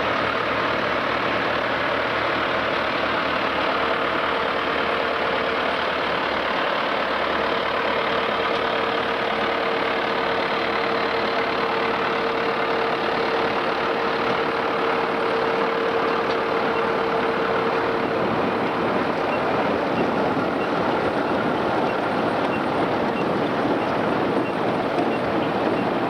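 Case IH 885XL tractor's diesel engine running steadily while it pulls a Grimme RowOver potato harvester through the field, with the harvester's machinery running. A steady mid-pitched tone holds through much of it.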